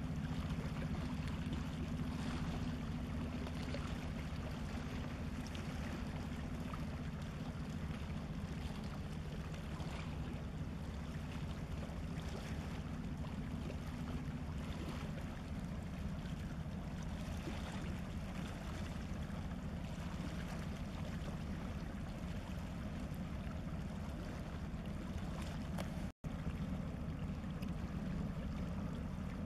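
Steady low drone of an inland cargo ship's diesel engine over a haze of water and wind noise; the sound drops out for an instant near the end.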